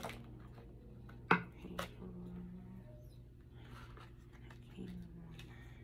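Tarot cards being handled: a few sharp card snaps, the loudest about a second and a half in, and a soft sliding rub near the end, over a low steady hum.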